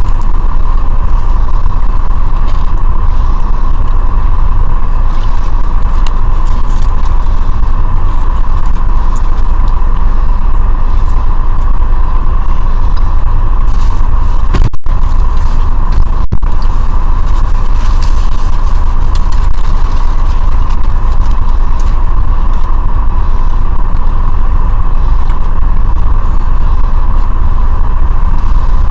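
Steady, loud low rumble of vehicle noise, unchanging throughout, with two very brief dropouts around the middle.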